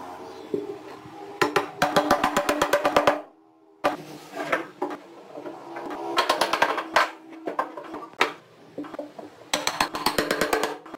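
Rapid wood-on-wood knocking in three quick bursts, each a run of taps several to the second: a block of wood tapping glued wooden parts together on a workbench.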